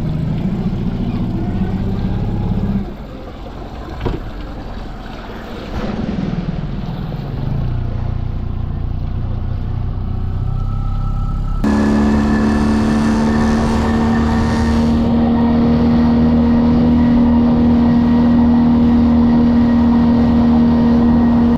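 Outboard motor on a small inflatable boat running: its pitch drops off after about three seconds, picks up again, and after a sudden jump about halfway through it runs steadily at a higher, louder pitch, under way.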